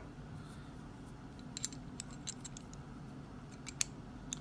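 Cast metal pieces of a Hanayama Cast Marble puzzle clicking lightly against each other as they are fitted together by hand. There are a few faint, scattered clicks, most of them from about a second and a half in.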